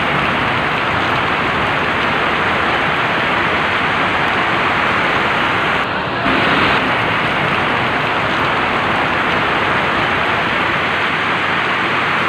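Steady rush of fast-flowing floodwater and heavy rain, with a brief shift in the noise about six seconds in.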